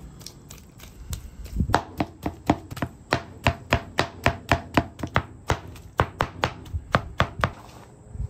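Meat cleaver chopping smoked brisket on a cutting board: a rapid run of sharp chops, about four or five a second, starting about a second in and stopping near the end.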